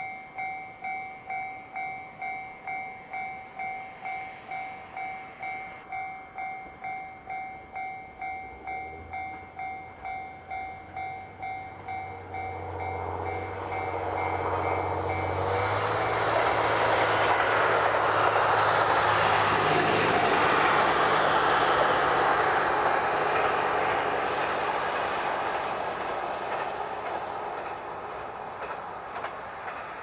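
Level-crossing warning bell ringing in an even pulse, about one and a half strikes a second. A diesel train's low engine hum comes in under it and grows. The train passes with a broad running noise that is loudest a little past the middle and fades toward the end.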